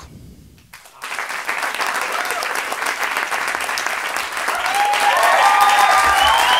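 Audience applauding: the clapping starts about a second in and grows louder, and voices whoop and cheer over it near the end.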